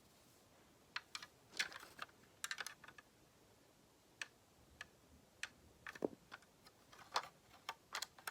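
Plastic Lego pieces clicking and clattering as they are handled and fitted: irregular sharp little clicks, in quick clusters near the start and spaced out later.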